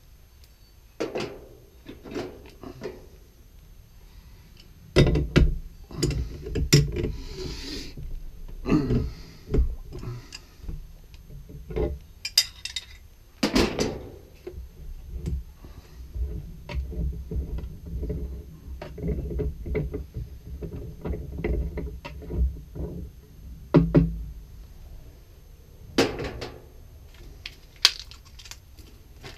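Irregular knocks, clicks and clanks of hand work on brass plumbing fittings and tools, with a low rumble through much of it.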